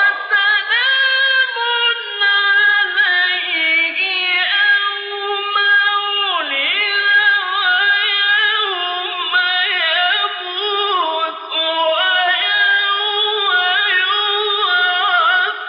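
A man's voice chanting Quran recitation in the slow, melodic mujawwad style: long held notes with trills and turns, one continuous phrase with a falling glide about six and a half seconds in.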